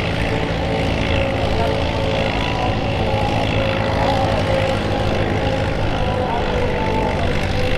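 Vintage farm tractor engine running steadily under load, pulling a weight-transfer sled at low speed.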